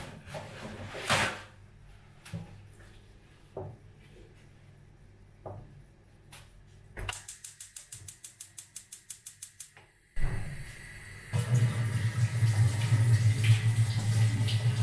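Kitchen sounds: a few light knocks and clatters, then a fast, even run of clicks for about three seconds, then water running steadily from a tap, louder for the last few seconds.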